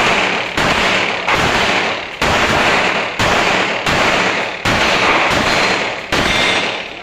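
A string of gunshots in steady rapid succession, about one a second, each sharp crack trailing off in a long echo.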